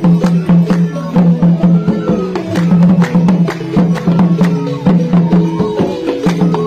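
Traditional music with drums and sharp percussion strikes over a repeating low note and short melodic notes.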